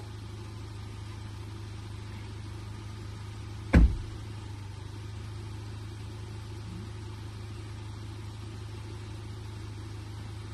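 SUV engine idling steadily, with one short, loud thump about four seconds in.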